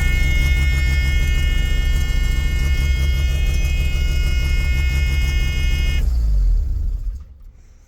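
Mazda RX-7's turbocharged rotary engine running at a fast idle, with a steady high whine over the rumble and exhaust leaking from the open EGT probe holes. About six seconds in it is switched off: the whine cuts out and the engine runs down within about a second.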